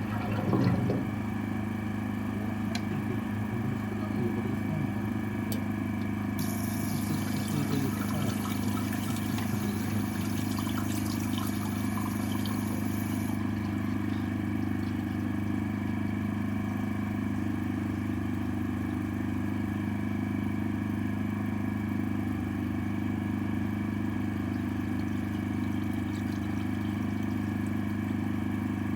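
High-pressure drain-jetting machine's engine running steadily at a constant speed while it jets the drain pipe. A high hiss joins for several seconds in the middle.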